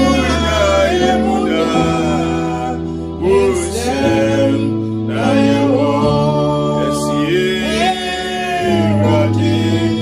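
Gospel music: a sung melody over instrumental accompaniment, with long held bass notes that change every second or two.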